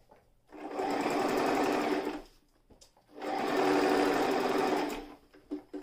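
Toyota Jeans JS021 electric sewing machine stitching through fabric in two runs of about a second and a half each, with a short pause between them, then a brief click near the end.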